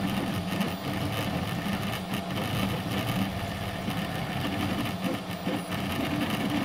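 Delta 3D printer printing at very high speed, its carriages running back and forth in a steady, rapidly fluttering mechanical noise. It has a raspy edge that comes from its cheap linear bearings.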